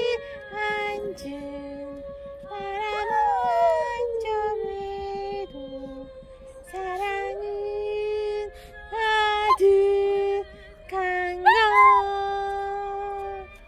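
Shih Tzu howling in long, drawn-out notes that rise and fall in pitch, in several phrases with short breaks, as if singing a song.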